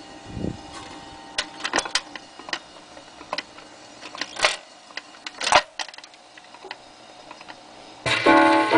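A 1946 Farnsworth pusher-type record changer cycling: a string of irregular mechanical clicks and clunks as the changer works and the tonearm swings onto the 78. About eight seconds in, the record starts playing, with piano music.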